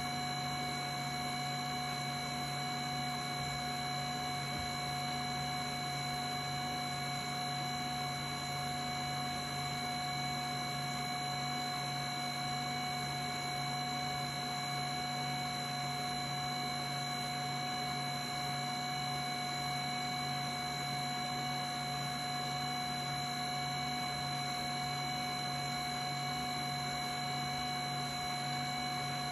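HumminGuru ultrasonic vinyl record cleaner in its drying cycle, its fans running with a steady hum, a high whine and an airy hiss while the record turns slowly in the slot.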